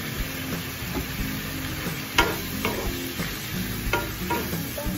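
Squid pieces sizzling as they fry in a nonstick pan while a wooden spatula stirs them, the spatula knocking against the pan a few times.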